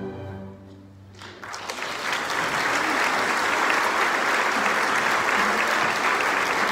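The last notes of the music die away, and about a second and a half in an audience breaks into steady applause.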